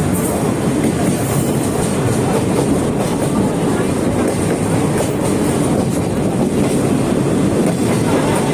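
Sagano Romantic Train carriage running along the track, heard from on board: a steady, loud rumble of wheels on the rails.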